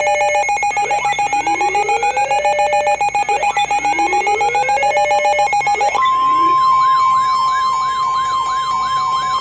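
Emergency Alert System attention signal for a severe thunderstorm warning, made of layered electronic alert tones. First a steady pulsing tone plays with slow rising siren sweeps under it. About six seconds in it switches to a single steady higher tone, with a siren wail rising and falling about three times a second.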